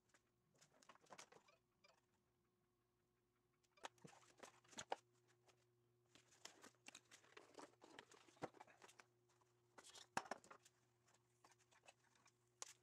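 Faint handling noises of wiring work: scattered small clicks, taps and rustles as hands move loose hookup wires and small hand tools on a plywood bench, over a low steady hum.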